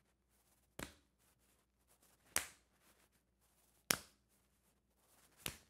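Open palms slapping the body, one hand on the opposite shoulder and the other near the ribs: four sharp slaps about a second and a half apart.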